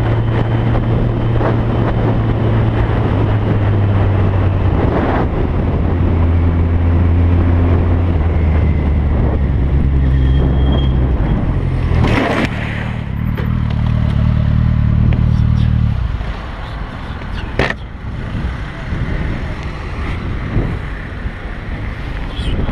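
A vehicle engine drones loudly at a low, steady pitch that drops in steps, with a few sharp knocks. About sixteen seconds in, the engine note stops and a rushing noise remains.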